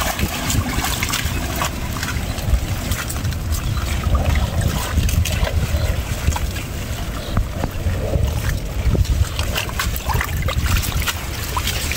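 Wind rumbling on the microphone, with crackling and rustling of water hyacinth leaves and stems and some splashing water as the plants are pulled from a bamboo push net.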